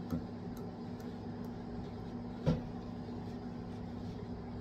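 Steady low hum of room background noise, with a few faint ticks and one short thump about two and a half seconds in.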